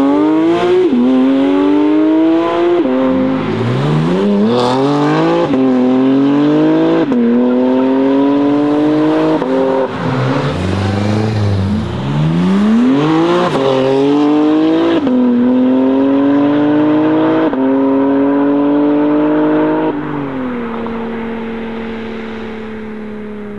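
BMW M4 CSL's twin-turbo straight-six, with a loud custom exhaust, accelerating hard through the gears: the engine note climbs and drops back at each upshift. About ten seconds in it eases off briefly, then pulls through several more upshifts before settling to a steadier note that fades as the car draws away.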